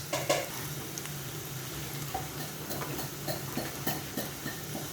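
Small pieces of tempeh sizzling in hot oil in a pan, nearly fried to light golden, with irregular clicks and scrapes of a spatula stirring them a few times a second.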